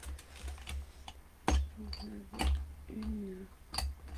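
Light clicks and taps of craft supplies (blending brushes and ink pads) being handled on a worktable, with a few sharper knocks about a second and a half, two and a half, and near four seconds in.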